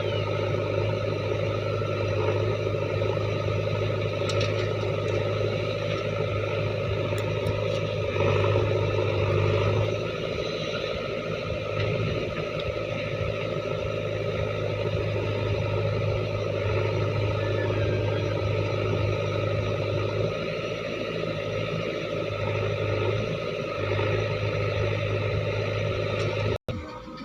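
Diesel engine of a JCB 3DX backhoe loader running steadily at working speed, its note swelling and easing a little as the machine works. The sound cuts off abruptly near the end.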